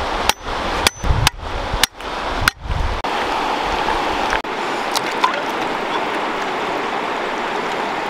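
Shallow river flowing steadily over stones, with several sharp knocks and abrupt brief dropouts in the first three seconds, and a low rumble that falls away about four seconds in.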